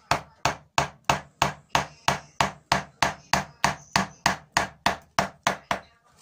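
Woodcarving gouge driven through the wood by even mallet taps, about three a second, cutting a curved groove with the grain. The taps stop near the end.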